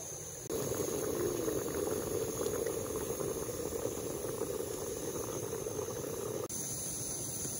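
Chicken stew bubbling in a pan under a glass lid: a dense run of small irregular bubbling pops. It starts suddenly about half a second in and cuts off about a second before the end.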